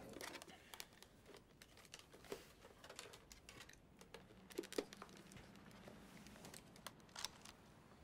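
Near silence with faint rustling and a few small clicks and taps of things being handled.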